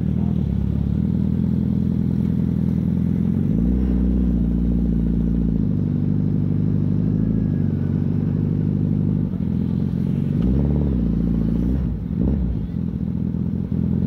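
Suzuki Hayabusa's inline-four engine running under way, its note rising as the throttle opens about three and a half seconds in, settling back around six seconds, then rising again near ten seconds and dropping with a quick blip near twelve.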